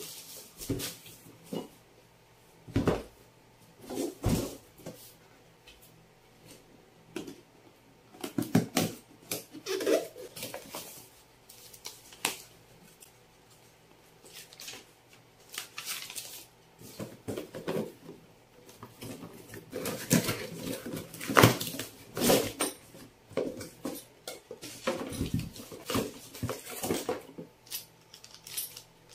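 Unboxing handling noises: a cardboard box being opened, with plastic wrap, a paper manual and a plastic accessory bag rustling and crinkling. Scattered knocks and clicks come in irregular clusters as items are picked up and set down on a wooden table.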